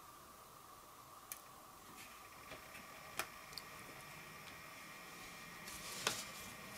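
A few sharp clicks and taps from a small plastic-and-alloy laser star projector being handled, the loudest about six seconds in, over a faint steady electrical hum.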